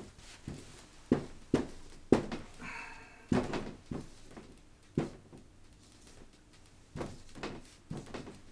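Marker writing on a whiteboard: a string of short taps and knocks as each letter stroke hits the board, with a brief squeak of the marker tip about three seconds in.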